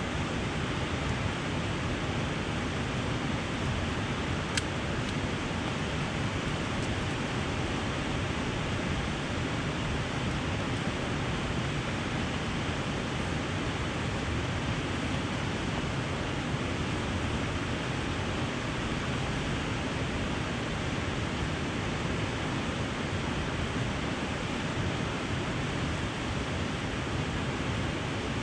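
Waterfall swollen with spring snowmelt runoff, a steady even rush of falling water, with a single faint click about four and a half seconds in.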